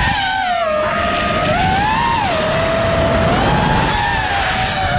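6S FPV freestyle quadcopter's brushless motors and propellers whining, the pitch rising and falling as the throttle changes, over wind rush on the onboard camera's microphone.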